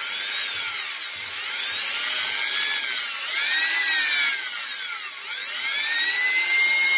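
Cordless drill running with a small motor armature clamped in its chuck, its motor whine rising and falling in speed a few times. Very fine sandpaper hisses against the spinning copper commutator, polishing it smooth so the brushes will not wear quickly.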